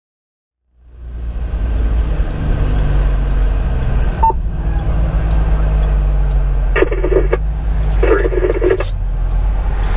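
Cab noise of a Pierce Velocity fire engine under way: its 470 hp Detroit Series 60 diesel running steadily with road noise, cutting in under a second in. A single short beep about four seconds in, then two short blasts with a steady pitch about a second apart.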